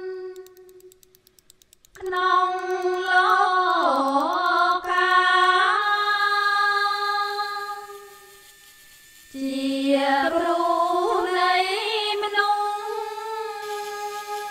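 Music with a solo singing voice holding long, sustained notes with ornamented slides and bends. It sings in two phrases, falling quiet briefly about a second in and again around eight seconds in.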